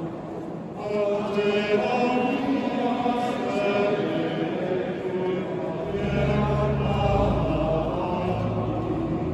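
Voices singing liturgical chant for an entrance procession, with low sustained notes joining about six seconds in.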